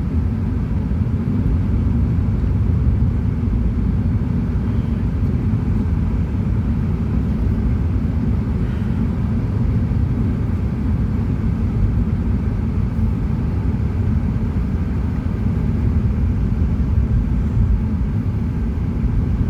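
Steady low road rumble heard inside the cabin of a moving car: engine and tyre noise at cruising speed.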